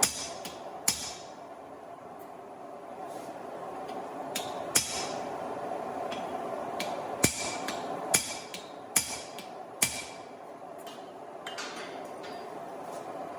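Hand hammer blows on a steel punch driving the eye through a hot hammer head on the anvil: a handful of separate sharp strikes a second or more apart, each with a short metallic ring, over a steady rushing noise.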